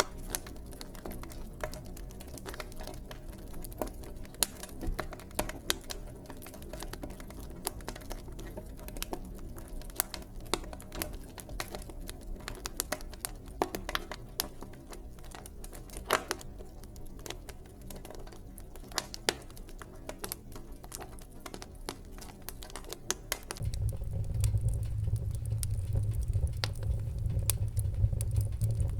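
Wood fire in a fireplace crackling, with frequent sharp pops and snaps of varying loudness over a steady low hiss. About 24 s in, a louder low rumble comes in and continues under the crackling.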